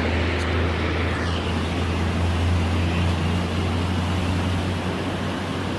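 Swollen, muddy river in flood rushing past with strong currents: a steady roar of fast water over a deep, even rumble.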